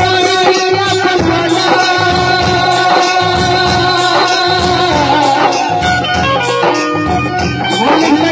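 Bhojpuri stage-show music playing loudly, with a steady beat under melodic instrumental lines.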